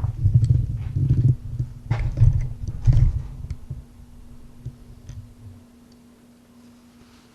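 BMW M6's V10 engine starting up after a throttle actuator replacement: a loud, uneven low rumble for the first few seconds that dies away after about five seconds, leaving a steady faint hum.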